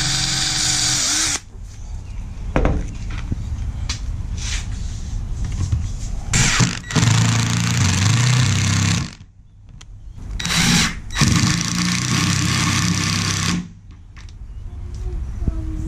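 Cordless drill boring pilot holes and countersinking into black-faced plywood, in several runs of one to a few seconds with short pauses between them. The motor hums low under the bit's noise.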